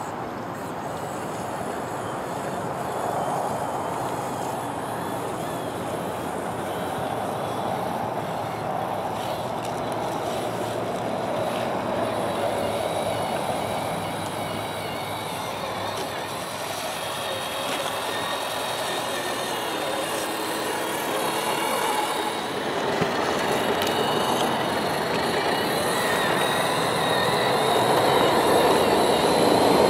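Shallow meltwater stream rushing, with the whine of RC crawler trucks' electric motors and drivetrains and their tyres splashing through the water; the sound grows louder near the end as a truck drives through the water close by.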